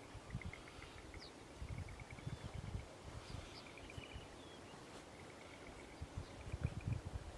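Faint bird calls at dawn, with short rows of rapid chirring pulses coming and going, over intermittent low rumbling noise.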